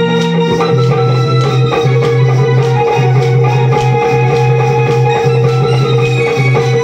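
Music: a low sustained note pulsing in a steady beat under a held higher note, with percussion and a melody line.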